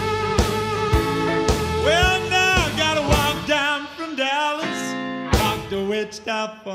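Electric blues band playing an instrumental break: a harmonica plays bending, wailing notes over guitar and a steady drum beat.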